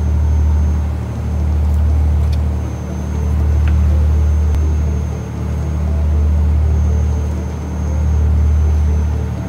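Boat engine running underway: a steady low drone that swells and dips about every two and a half seconds, with a thin high whine above it.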